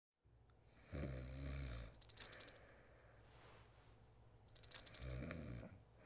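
A man snoring twice. Each snore joins a low throaty rumble to a fast, high-pitched rattling whistle.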